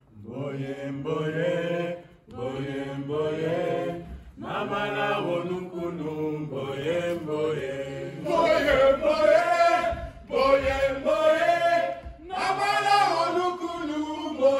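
Voices chanting in short phrases with brief pauses, growing louder about eight seconds in, over a low steady drone in the first half.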